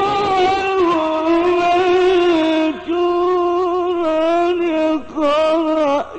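A male Quran reciter's voice drawing out long ornamented notes in the melodic mujawwad style, the pitch wavering around a held tone and easing down, with short breaths about three and five seconds in.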